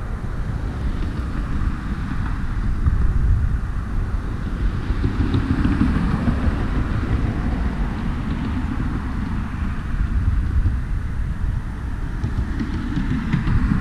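Road traffic on a highway bridge: a steady rumble of passing vehicles that swells twice, about a third of the way in and again near the end.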